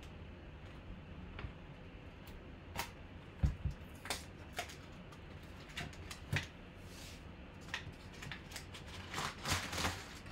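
Scattered clicks, taps and rustles of a sealed autographed bat's packaging being handled and opened, busiest near the end.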